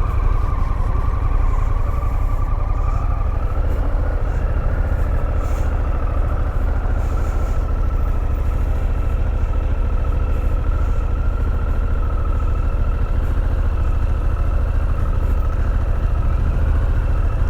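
Harley-Davidson Pan America's 1250 cc V-twin engine running steadily at low speed as the motorcycle is ridden slowly through tight cone turns on the clutch.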